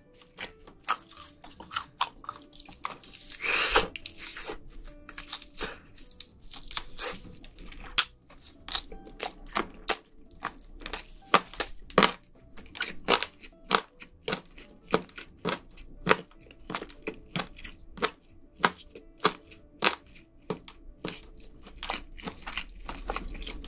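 Close-miked crunching and chewing of crispy air-fried chicken: dozens of sharp, irregular crunches as the fried coating is bitten and chewed, with one longer crackling burst about three seconds in.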